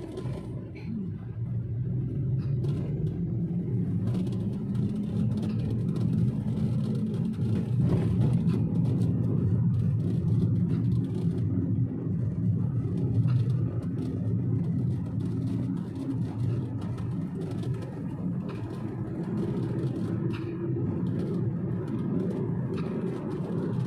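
A motor vehicle running on the road: a steady low engine hum with road noise, growing louder over the first few seconds and then holding steady.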